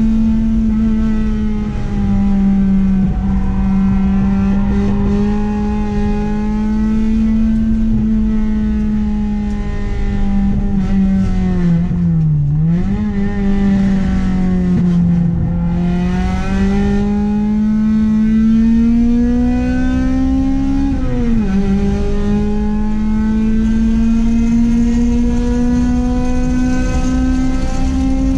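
Honda H22A 2.2-litre four-cylinder engine of a track-driven Accord, running hard at high revs with its pitch climbing slowly under load. The pitch dips sharply near the middle and climbs again, and drops suddenly about three-quarters through at a gear change before climbing once more.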